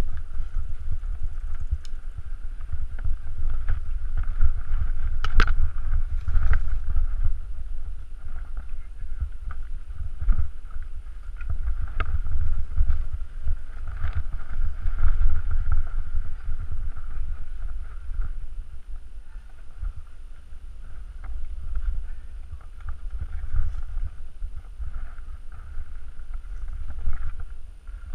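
Mountain bike descending a dirt singletrack: tyres rolling over dirt and loose stones, the bike rattling with scattered clicks and knocks, and a heavy wind rumble on the camera microphone throughout.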